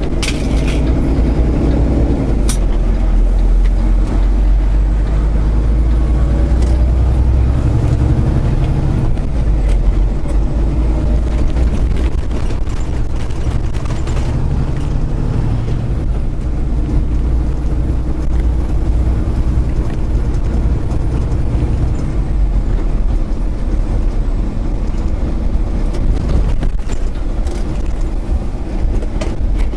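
Semi truck's diesel engine running under load from inside the cab, the engine note rising and falling a few times as the truck pulls away and goes through the gears.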